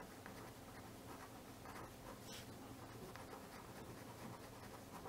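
Faint scratching of a fineliner pen writing short words on paper, over a low steady hum.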